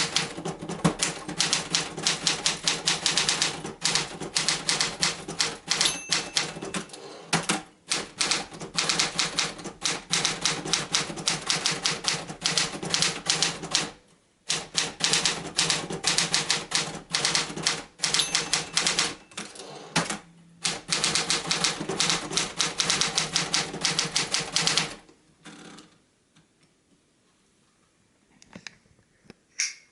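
1964 Hermes Ambassador manual typewriter being typed on: rapid keystrokes with a few short breaks. The typing stops about 25 seconds in, leaving only a few faint clicks near the end.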